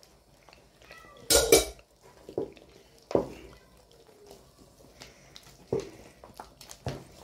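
A plate clatters against the rim of a stainless steel stock pot as ground crayfish is tipped into the soup, the loudest sound, about a second in. A wooden spoon then stirs the thick soup, knocking against the pot every second or so.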